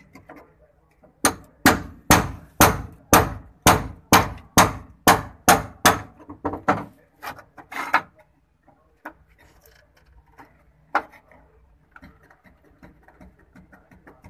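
Hammer blows striking the rusted steel floor pan of a Suzuki Khyber, about fifteen sharp metallic hits at roughly two a second that stop about eight seconds in. A few lighter knocks and scrapes follow.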